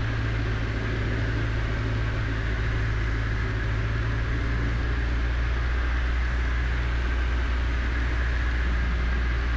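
Cessna 152's four-cylinder Lycoming engine and propeller running steadily at cruise power, heard inside the cockpit as an even hum and rush of noise.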